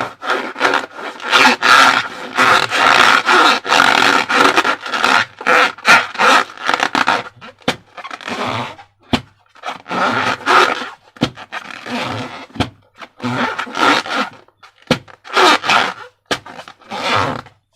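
Rubber balloons being handled and stretched, the rubber squeaking and scraping in irregular bursts of a second or two with short pauses between.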